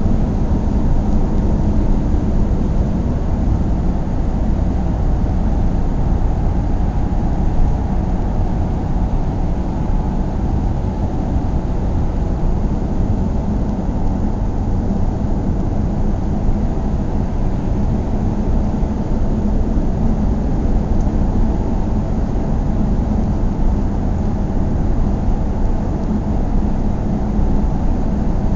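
A car driving at a steady speed: a continuous low rumble of engine and road noise that holds even throughout.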